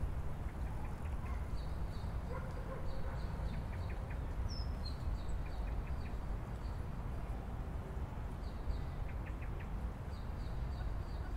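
Outdoor ambience of small birds chirping in short quick series, with one brief downward-sliding call, over a steady low rumble.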